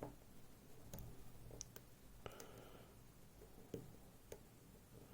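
Faint, scattered clicks of a lock pick working the pins of a FAB Variant lock, about half a dozen sharp ticks over a few seconds.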